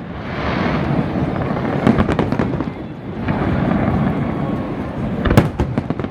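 Aerial fireworks bursting in a rapid barrage: continuous rumbling booms with many sharp cracks, the loudest crack about five seconds in.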